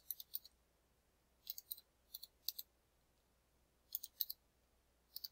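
Faint computer keyboard keystrokes in short runs of a few taps with pauses between, as multi-digit numbers are typed into a spreadsheet.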